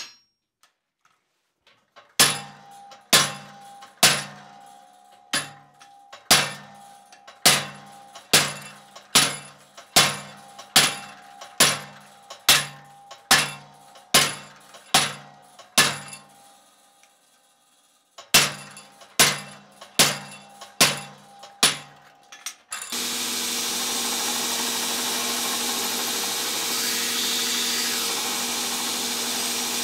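Hammer blows, about one a second, on a handled top tool held against the steel blade, each with a short metallic ring; after a pause of about two seconds, five more blows. About three-quarters of the way through, a belt grinder comes on abruptly and runs steadily, grinding the steel.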